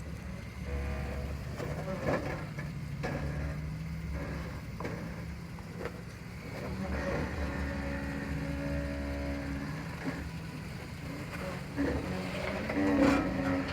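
Off-road vehicle crawling slowly over rocks: a low engine hum under long, drawn-out groans and creaks from the suspension and body as they flex, with a few knocks.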